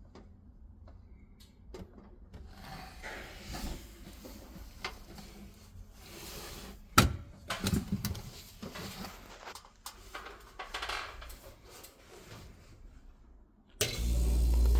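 Scattered clicks, rubbing and one sharp knock of handling work on a commercial refrigerator. Near the end a loud, steady low hum starts suddenly: the refrigerator's compressor starting up and running.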